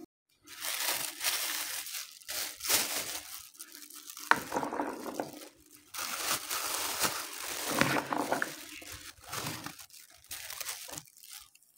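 Thin plastic bag crinkling and rustling in irregular bursts as boiled chickpeas are packed into it.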